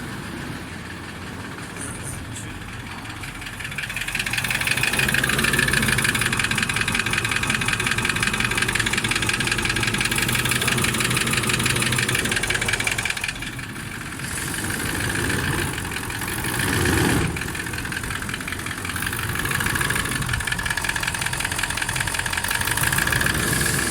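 Toyota 1VD-FTV V8 turbodiesel running with a foreign knock: an even, fast rhythm of strokes over the engine's running, louder from about four seconds in. The mechanic puts the knock down to either the piston group or the bushings.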